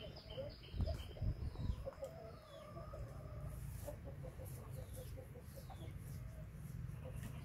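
A hen clucking in a quick run of short repeated notes, with a few low thumps about a second in.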